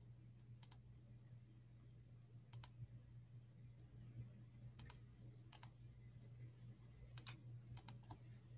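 Near silence: a low steady hum with about six faint, scattered clicks, some in quick pairs, from a computer keyboard and mouse being used.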